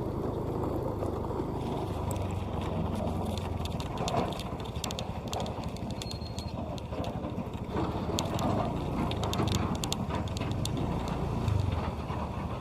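CAT 320D2 hydraulic excavator's diesel engine running steadily, with many scattered clicks and clatter as it works the aggregate stones.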